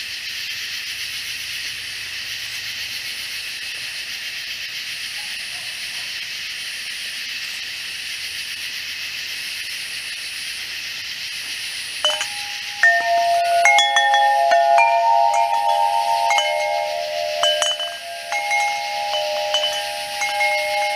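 Katydids and cicadas droning steadily in a high, continuous chorus. About twelve seconds in, clear bell-like tones start ringing in overlapping notes, louder than the insects.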